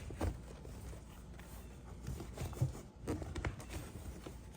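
Handling noise: a few scattered knocks and rustles as a motorcycle seat and its cover are worked by hand, pulling the cover all the way over before stapling.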